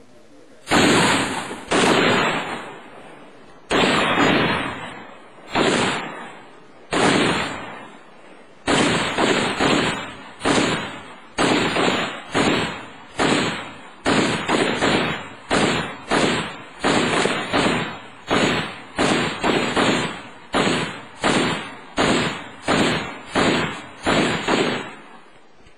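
Gunfire from several 7.62 mm NATO weapons firing together: about thirty loud reports. They are spaced out at first, then come steadily, roughly one every half second to second, from about nine seconds in.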